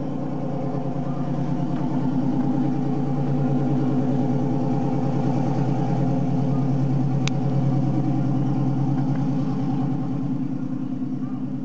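A motor engine running steadily, growing louder to its peak mid-way and easing off near the end.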